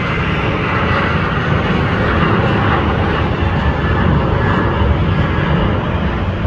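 Jet engines of a Southwest Airlines Boeing 737 at takeoff power as it climbs out overhead: a loud, steady jet noise with a deep rumble and no pauses.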